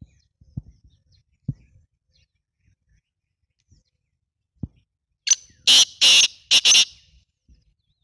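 Black francolin giving one loud, harsh call of about five rasping notes in quick succession, lasting about a second and a half and starting a little past the middle. A few faint low knocks come before it.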